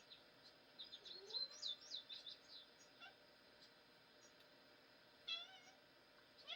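Faint animal calls over a quiet background: a run of quick, high chirps about a second in, then a single short call with a falling pitch near the end.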